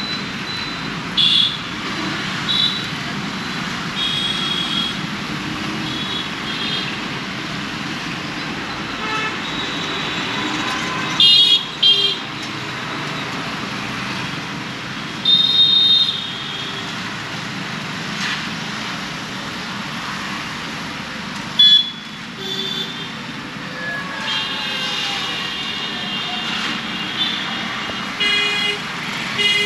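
Road traffic running past, with vehicle horns tooting again and again. There are a few loud short honks about a third and halfway through, and a cluster of toots near the end.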